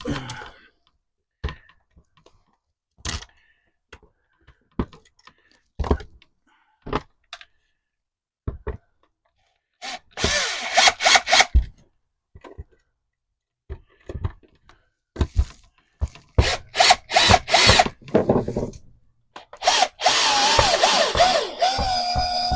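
Handheld power drill running in short bursts, then a longer steady run near the end, with clicks and knocks of handling in between.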